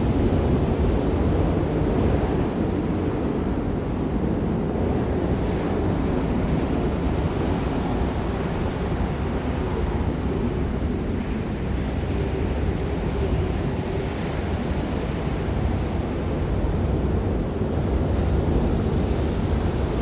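Steady surf and wind, with wind rumbling on the microphone.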